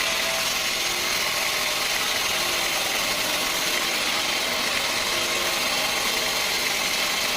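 Sawmill machinery running steadily with an even mechanical noise that does not change.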